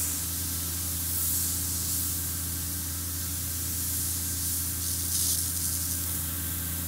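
Pop-up turf irrigation heads hissing steadily as compressed air blows the remaining water out of the lines as a fine mist, the sign that the zone is being emptied for winter. A steady low hum runs underneath, and the hiss swells briefly about five seconds in.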